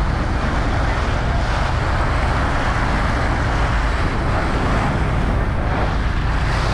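A boat under way: its engine running steadily under a continuous rush of water and wind noise.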